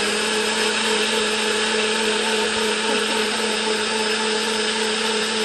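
NutriBullet personal blender running steadily with a constant motor whine, puréeing tomatoes and garlic into a smooth liquid.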